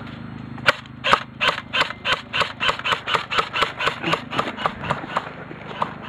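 Running footsteps on grass with gear jostling against the camera: a quick, even run of knocks about three a second, starting about a second in. A low steady hum underneath stops just before the steps begin.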